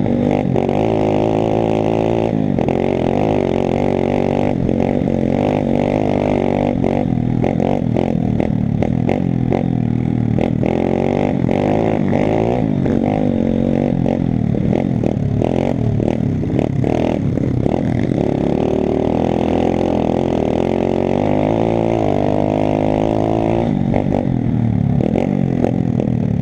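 Pit bike's single-cylinder four-stroke engine running under riding load on a rough dirt trail, its revs rising and falling repeatedly as the throttle is worked, with frequent knocks and rattles from the bike over rocky ground.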